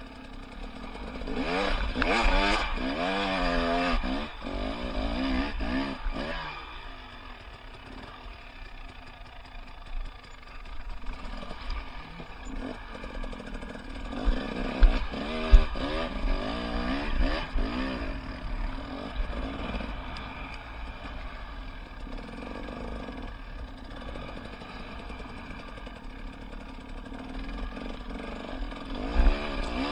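Off-road enduro motorcycle engine revving up and down repeatedly while being ridden through rough terrain, over a steady low rumble. Two sharp knocks come about fifteen seconds in.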